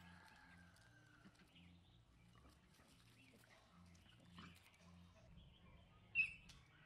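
A puppy and a baby monkey play-fighting, mostly faint, with one brief high squeal about six seconds in.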